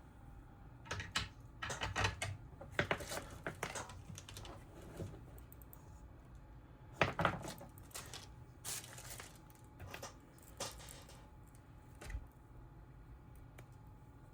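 Scattered small clicks and clatters of tools and tiny electronic parts being handled and set down on a workbench, in irregular clusters, with the loudest around halfway through.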